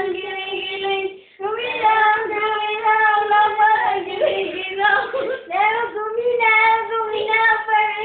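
A child's voice singing in long, high held notes, with a short break about a second in.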